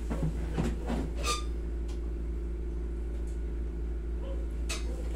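Steady low hum from the room, with a few faint brief rustles early on and one short sharp click near the end.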